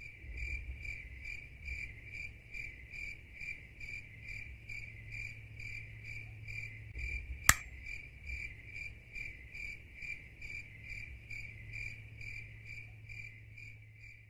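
A cricket chirping in a steady rhythm, about two and a half chirps a second, over a low steady hum. A single sharp click about halfway through stands out above it.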